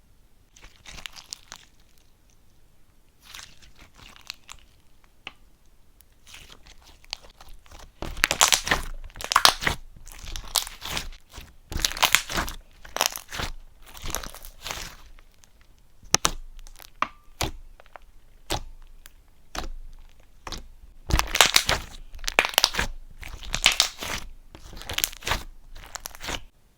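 Slime being squeezed and pressed by hand, crackling and crunching in repeated bursts about a second long, faint at first and loud from about a third of the way in.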